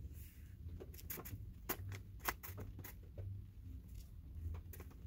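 Faint, scattered light clicks and taps from hands handling a plastic case of steel impact sockets, over a low steady hum.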